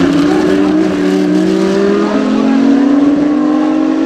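GT race car engines accelerating, their pitch rising steadily.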